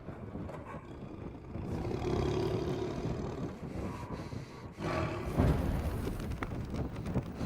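Lions roaring, in two swells: one about two seconds in and a louder one about five seconds in.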